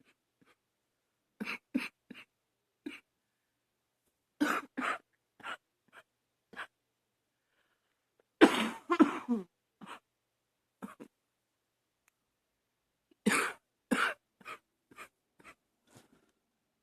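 A woman coughing in repeated short, harsh coughs that come in runs with silent pauses between them, the loudest spell about halfway through. It is an allergy cough by her own account.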